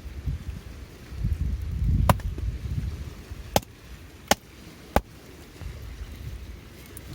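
Four short, sharp cracks or knocks spread over a few seconds, over a low rumbling noise that swells loudest about two seconds in.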